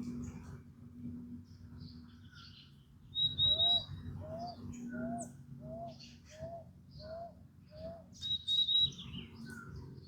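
Several wild birds singing and calling together. Twice there is a quick run of high chirps, and in between a series of about seven short, low, slightly upswept notes comes at an even pace, a bit more than one a second.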